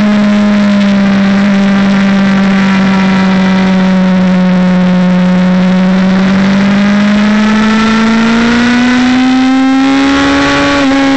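Motorcycle engine running hard in second gear from the rider's onboard camera, its note sagging slightly through a slow corner and rising again as the bike accelerates out, over steady wind rush on the microphone.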